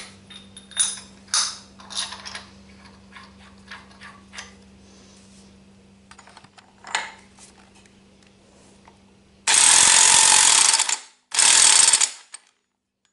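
Metal clinks and knocks as a lightened flywheel is worked onto the crankshaft dowels, then an electric impact wrench runs in two loud bursts of about a second each, driving the flywheel nut tight.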